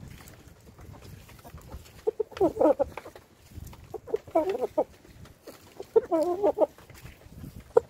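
Chicken clucking in three short bouts of warbling calls, about two seconds apart.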